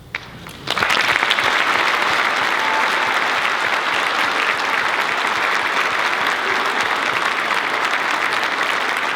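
Audience applause that breaks out suddenly under a second in and goes on steadily as a dense patter of clapping.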